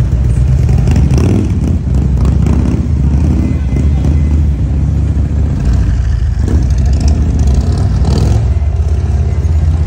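Harley-Davidson touring motorcycles' V-twin engines idling and running at low speed, a deep, steady rumble.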